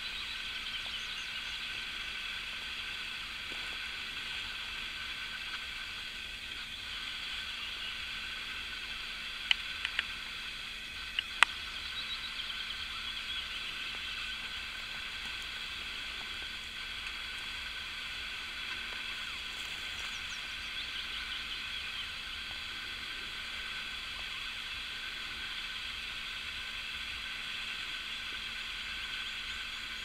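Spring woodland ambience: a steady, dense chorus of many distant overlapping animal calls. A few sharp clicks come about ten seconds in.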